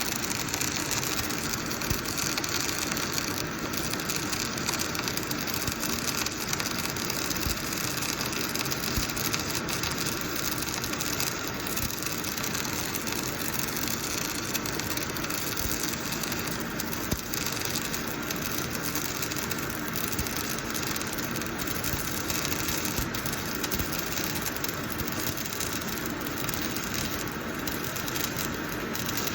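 Semi-automatic arc welding: the welding arc crackling steadily and evenly, as a continuous weld bead is laid.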